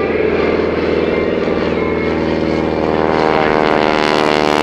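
Grumman Ag-Cat biplane's radial engine and propeller running steadily in a low flypast. The sound grows a little louder and fuller about three seconds in.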